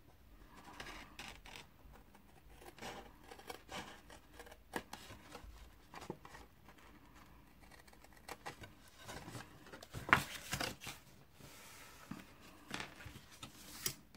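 Scissors snipping through folded cardstock in short, separate cuts, with the sheet rustling as it is turned; the loudest snips come about ten seconds in.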